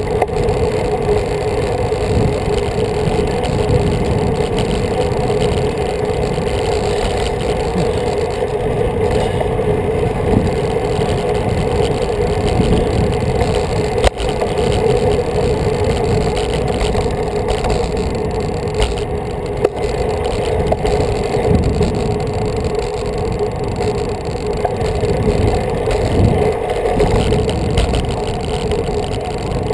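Steady wind noise buffeting the microphone of a camera riding on a moving road bike, with a constant drone underneath and one sharp click about halfway through.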